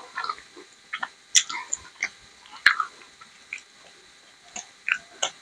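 Close-miked chewing and wet mouth sounds of someone eating rice and kidney bean curry by hand, in scattered short crackles with two sharper clicks.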